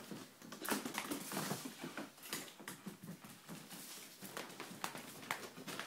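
Italian greyhound's claws clicking and pattering on a hardwood floor in many irregular light taps as it moves about.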